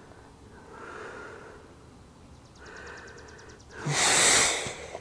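A loud, hissing exhale like a huffing sigh near the end. Before it come faint handling noises, with a brief run of fast, even ticks.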